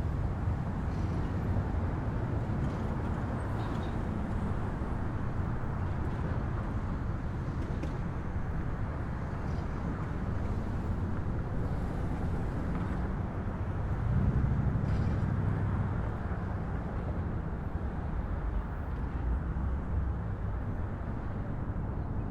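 City street ambience: a steady rumble of traffic, with a louder swell about two thirds of the way through as a vehicle goes by.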